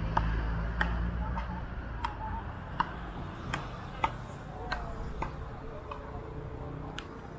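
A series of sharp clicks, about one every half to two-thirds of a second, over a low hum that fades out in the first second or two.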